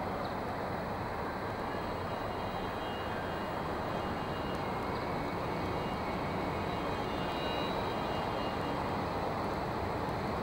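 Steady city background noise: a constant rushing hum with no distinct events, and a few faint thin high tones in the middle of it.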